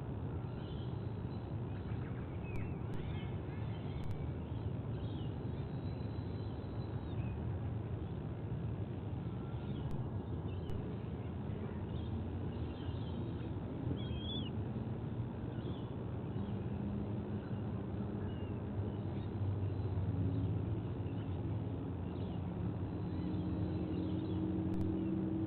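Steady low outdoor rumble with faint, scattered small-bird chirps. About halfway through, a low droning engine hum comes in and grows a little louder near the end.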